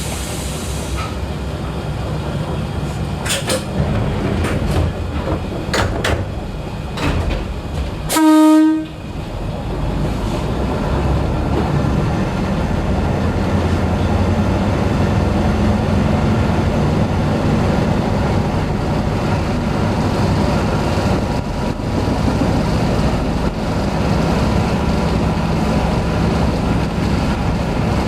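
Diesel train on the Kosaka Railway heard from the driver's cab: a few sharp clicks, then one short, loud horn blast about eight seconds in, followed by the engine and wheels on the rails running steadily and a little louder.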